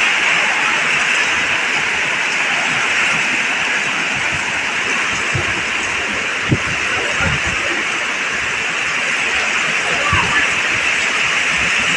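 Heavy rain pouring down in strong wind, a loud steady hiss. Gusts buffet the microphone in low thumps around the middle, with one short knock about six and a half seconds in.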